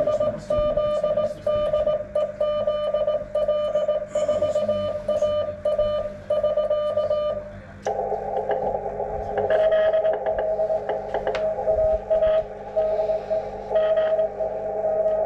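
Morse code (CW) from an HF amateur radio: a single beeping tone keyed on and off in dots and dashes. About eight seconds in the strong tone stops and a band of receiver hiss comes up, with a Morse tone still keyed through it.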